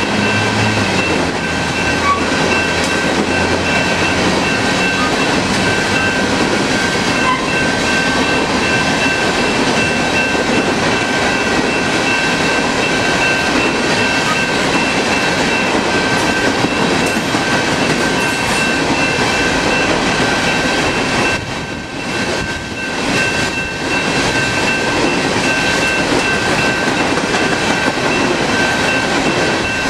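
Empty coal cars of a long freight train rolling past at speed: a steady rumble and clatter of wheels on rail. A steady high-pitched ringing tone runs over it. The noise dips briefly about three-quarters of the way through.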